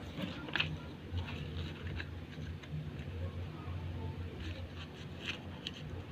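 A sheet of paper being handled and folded by hand, with a few short rustles and light taps over a steady low hum.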